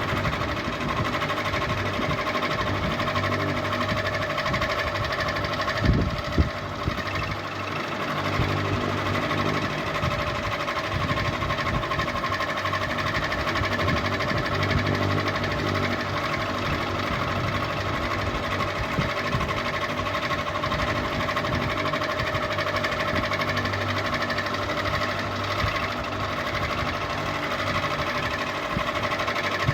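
Ceiling fan running steadily: an even mechanical whir with a low hum under it, and one brief knock about six seconds in.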